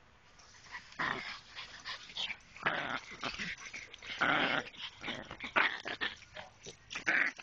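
Two dogs play-growling in irregular bursts while tussling over a toy ball.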